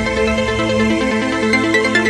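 Electronic music: a run of short synth notes stepping over a held low tone.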